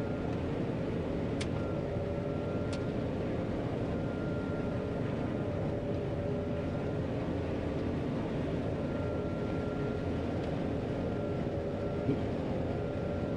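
John Deere 9500 combine running steadily while harvesting soybeans, heard from the cab: an even machine hum with a faint high whine over it. Two sharp clicks come about a second and a half apart near the start.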